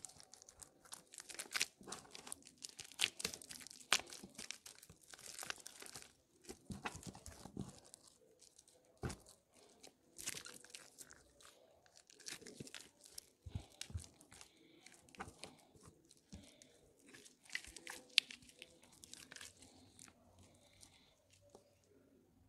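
Soaked soap squeezed and kneaded by hand, giving irregular wet crunching and crackling that dies down near the end.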